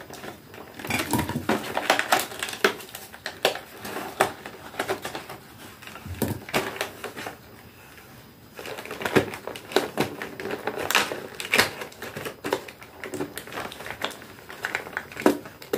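Cardboard and plastic packaging of advent calendar boxes being torn and pulled open by hand: irregular crackling, crinkling and clicks, busiest about a second in and again around the middle.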